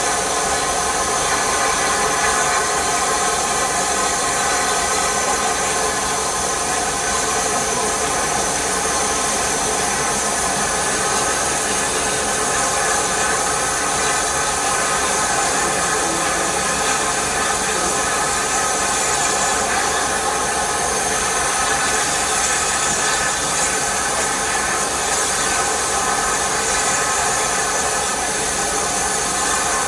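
Bulleid rebuilt West Country class steam locomotive 34028 standing with steam hissing steadily from low down by its cab.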